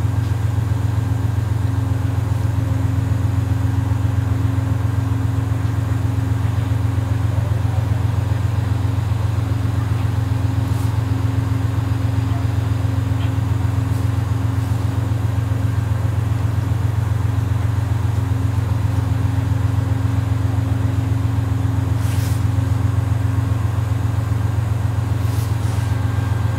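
Steady low drone of an Amtrak B32-8WH diesel locomotive idling while the train stands at the platform, with a few faint clicks over it.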